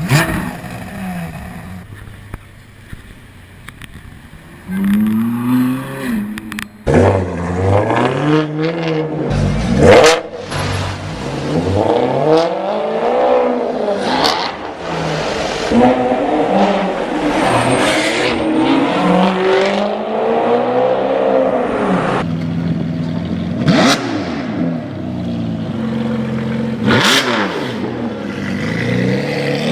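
Supercar engines revving and accelerating again and again, the engine pitch climbing and dropping with each blip, with a few sharp cracks among the revs. Fairly quiet for the first few seconds, then loud from about five seconds in.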